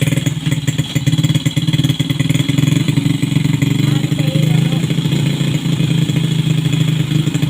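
Bored-out Honda Supra motorcycle's single-cylinder four-stroke engine running steadily on a test run after the rebore, its fast exhaust pulses holding an even speed.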